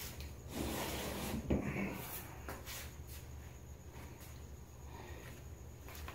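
Rubbing and knocking handling noises with a sharp thump about a second and a half in, followed by a few faint clicks over a low steady hum.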